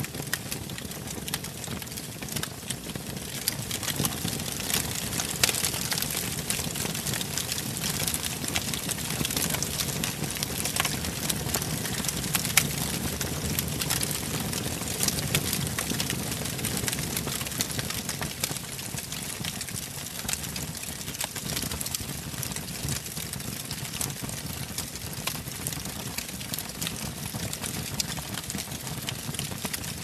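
Wood fire burning in a fireplace: a steady hiss of flames with frequent sharp crackles and pops from the burning logs.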